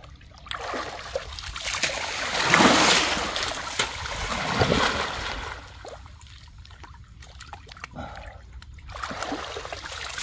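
Muddy water splashing and sloshing as people wade chest-deep and thrash their arms, groping for fish by hand. The splashing surges about two and a half and four and a half seconds in, eases off for a few seconds, then picks up again near the end.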